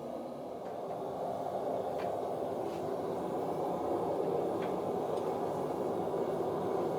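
A steady rushing noise, growing slightly louder about a second in, with a few faint clicks.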